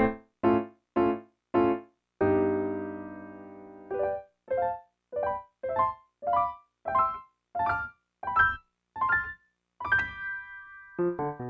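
Piano accompaniment to a silent film: a few short detached chords, a long held chord, then a string of short notes climbing step by step, about two a second, ending on a held high note.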